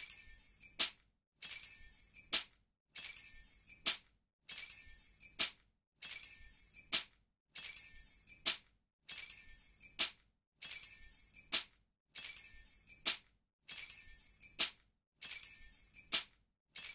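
A bunch of metal keys jingling in a short jangle that ends in a sharp click, then a brief silence. The same jangle repeats identically about every second and a half.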